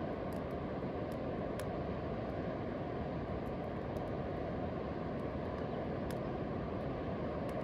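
Steady outdoor ambient rushing noise, even in level and mostly low in pitch, with a few faint, scattered high ticks.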